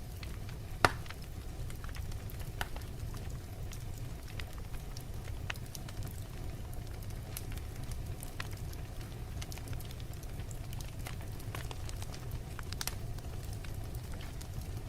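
Wood fire burning in a fireplace: a steady low rumble of the flames with irregular crackles and small pops, and one sharper pop about a second in.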